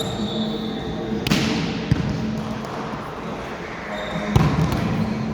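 A volleyball striking hard three times, the loudest about a second in with a trailing echo, the others a little later and near the end, over a steady murmur of players' voices.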